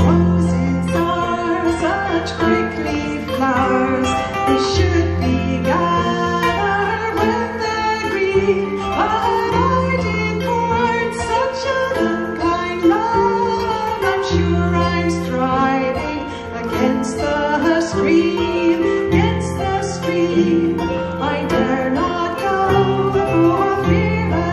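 A woman singing a slow folk song, accompanied by plucked kora and harp, with deep bass notes changing every few seconds beneath the melody.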